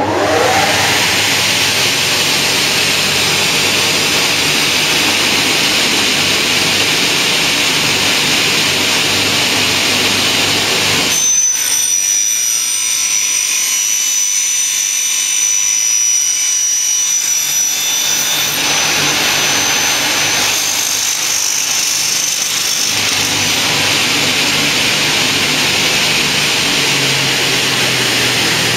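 Saw-blade motors of a double-head mitre cutting saw running steadily, a loud even rushing machine noise. For several seconds near the middle the deep part fades and a thin high whistle rides over it.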